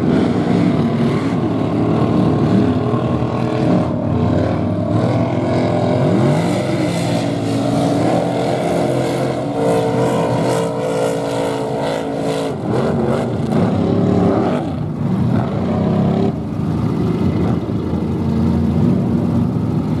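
Big mud trucks' engines revving hard, the pitch climbing and falling, then held at high revs for a few seconds in the middle while the tyres throw mud and water.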